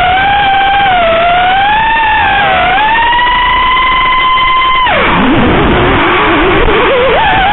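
FPV racing quadcopter's brushless motors and propellers whining at a steady pitch that slowly rises. About five seconds in, the pitch drops sharply as the throttle is chopped during a flip, then wobbles back up as power is reapplied.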